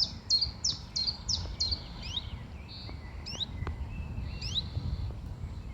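Common chiffchaff singing: a run of about six even, high notes, roughly three a second, in the first two seconds. Other birds give short rising calls through the rest.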